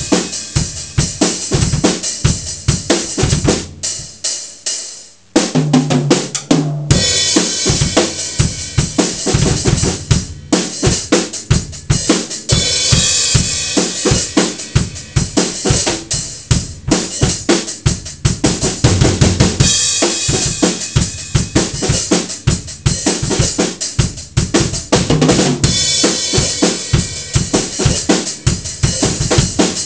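A drum kit played in a fast, steady rhythm of kick, snare and cymbal hits. About four seconds in the playing breaks off and rings away, then starts again a second or so later and keeps going.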